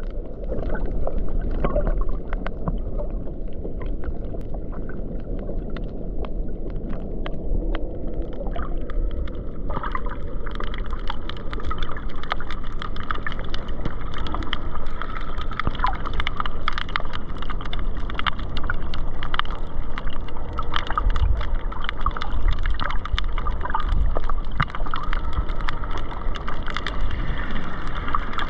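Shallow reef water heard with the microphone just under the surface: a steady muffled rushing and sloshing of water, with a scatter of small crackling clicks that grows busier partway through.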